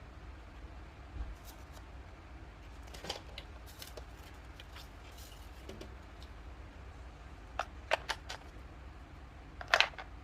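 Scattered light clicks and taps from small plastic toy kitchen pieces and their packaging being handled. A quick run of clicks comes about two thirds of the way in, and the loudest cluster near the end, over a low steady hum.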